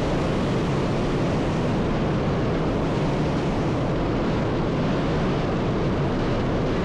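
Steady rush of a fast-flowing stream, an even, unbroken noise.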